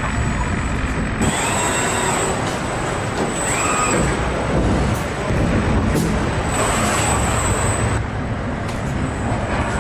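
Car body-shop assembly line running: industrial robots' motors whining up and down in pitch over a steady machinery din, with bursts of pneumatic hiss and a couple of sharp clicks.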